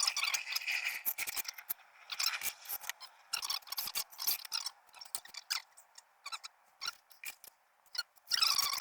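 A hard tool scraping and clicking against tile and mortar in quick, irregular strokes, busiest in the first second or two and again near the end.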